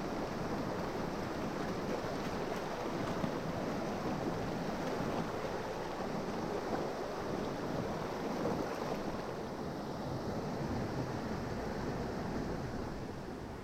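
Steady rush of a fast-flowing river's water.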